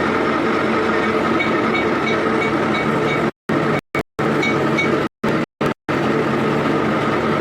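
Electric arc welding: a steady, dense crackle, cut off abruptly to silence several times in the second half.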